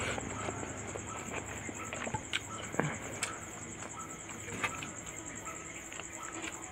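Eating sounds of fish curry and rice: scattered wet smacks and clicks of chewing, a few louder than the rest, over a steady high-pitched trill.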